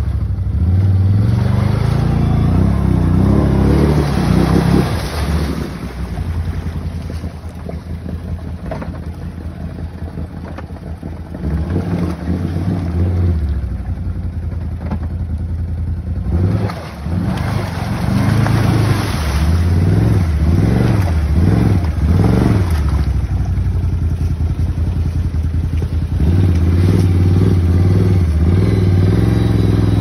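Can-Am ATV engine revving in the water. The throttle rises and falls, the engine runs quieter for a while, then gives a string of quick blips in the middle. Near the end it holds steady and louder as the ATV climbs out up the bank.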